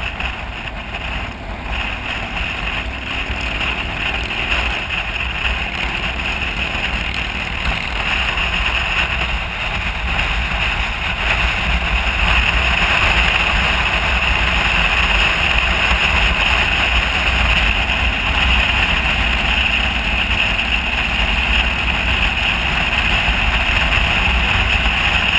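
Motorcycle riding at highway speed, heard from a camera on the bike: a steady rush of wind and engine and road noise that grows somewhat louder about halfway through.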